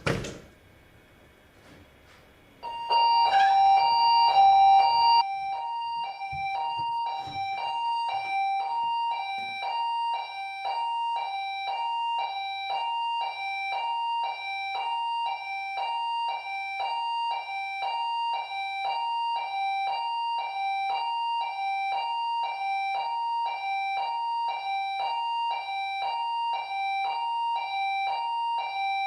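A click, then about three seconds in an electronic alarm sounder starts up, alternating rapidly and evenly between a high and a low beep, an alarm output triggered. It is loudest for its first couple of seconds, then keeps going steadily.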